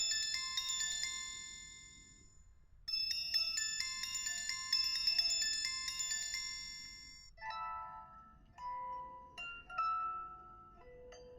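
Samsung Galaxy S4 mini ringtones playing. A high, chiming bell-like melody fades out, starts again about three seconds in and fades once more. A different, lower-pitched melody begins about seven seconds in.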